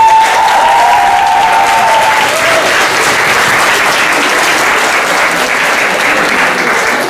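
Audience and performers applauding steadily in a hall. A held high-pitched tone rides over the clapping for about the first two seconds.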